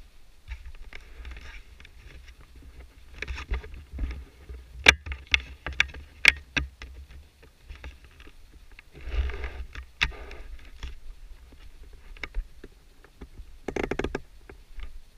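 Handling noise on an action camera as it is moved about: sharp clicks and knocks, several in quick succession a few seconds in, and short rustles, over a low wind rumble on the microphone.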